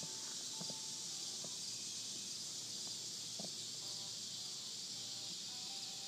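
A steady high-pitched buzz of cicadas, with a faint pulse in it. A few faint short tones and soft knocks come through underneath.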